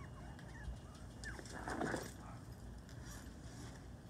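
Young puppies whimpering in short, thin squeaks, with one louder, rougher sound about two seconds in.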